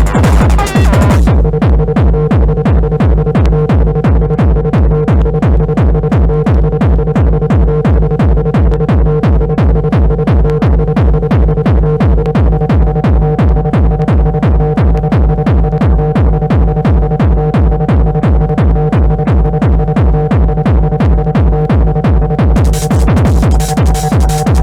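Techno played loud over a club DJ set: a steady, evenly spaced kick drum under held synth tones, with a higher synth note joining about halfway through. The treble is filtered out about a second in and sweeps back in near the end, a breakdown-and-return in the mix.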